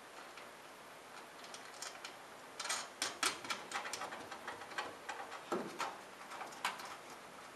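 Small metal hardware clicking and ticking as a lock washer and nut are fitted onto a bolt and spun on by hand, in an irregular run of light clicks starting about two and a half seconds in, with one duller knock partway through.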